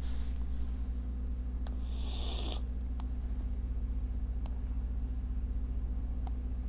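Steady low electrical hum with a few sharp single clicks spaced a second or more apart, typical of a computer mouse. A short breathy hiss comes about two seconds in.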